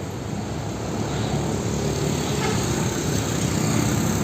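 A motor vehicle's engine running steadily, growing a little louder after about a second.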